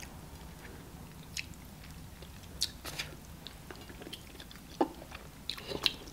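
Close-up eating sounds of starch fufu and banga soup with meat, eaten by hand: scattered wet mouth smacks and chewing clicks a second or so apart.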